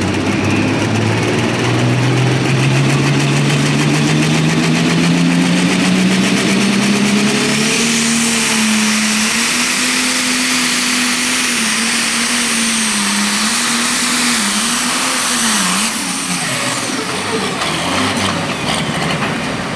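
Pro Stock pulling tractor's turbocharged diesel engine working hard under load on a pull. Its pitch climbs steadily for about eight seconds, then surges up and down, and falls away a few seconds before the end.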